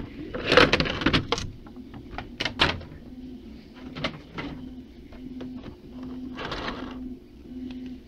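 Thin clear plastic blister packaging crinkling and crackling as it is lifted off and handled, with a few sharp plastic clicks; the loudest crinkle comes about a second in.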